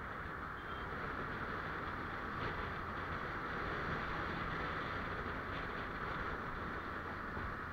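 Steady riding noise from a moving two-wheeler in traffic: a constant rush of wind and road noise over the low hum of its engine, holding level throughout.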